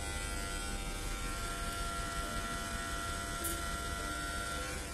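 Corded electric hair clippers running with a steady buzz while cutting hair at the side of the head.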